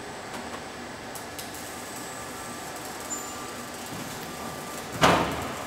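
Robotic car-body welding line running with a steady machine hum and a few faint clicks. About five seconds in comes a sudden loud rush of noise that fades away within about half a second.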